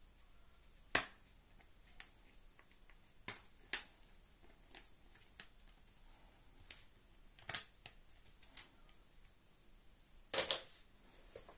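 Sharp plastic clicks and snaps as a pair of Extol Premium diagonal cutting pliers is pried out of its plastic hanger card. The clicks come one at a time, the loudest about a second in and a double snap near the end as the pliers come free.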